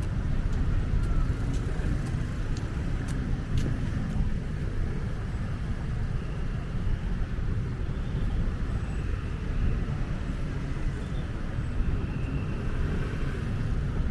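Outdoor city street ambience: a steady low rumble of road traffic, with a few light clicks in the first four seconds.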